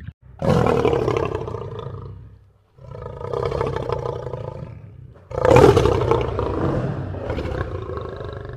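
Recorded big-cat roars: three long roars, one after another, with the last the loudest.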